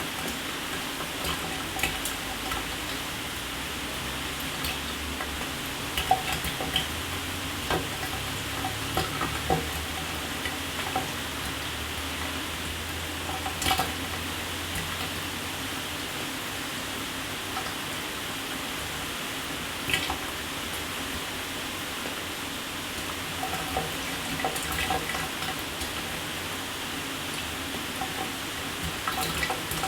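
Shower water spraying steadily, pattering on a hard surface with scattered sharper splashes and drips.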